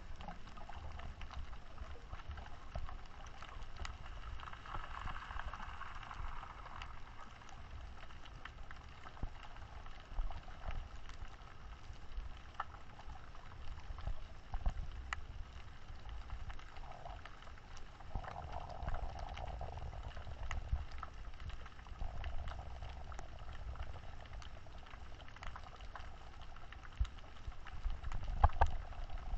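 Underwater ambience picked up by a GoPro in its housing: a steady low rumble of moving water with scattered crackling clicks throughout. A soft hissy swell comes up twice, about five seconds in and again around nineteen seconds.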